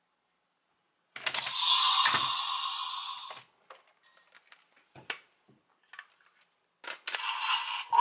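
A burst of electronic sound from a toy's speaker starts about a second in and fades over about two seconds. It is followed by scattered small plastic clicks and knocks as the toys are handled. Near the end, another electronic toy sound begins.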